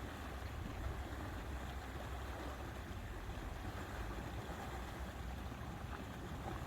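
Steady outdoor lakeside ambience: an even low rumble with a soft hiss over it, without distinct events.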